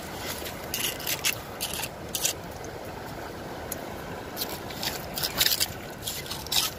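Scraping and digging in the wet shore sediment to gather sihi sea snails: short, irregular scrapes with a busier run of strokes past the middle.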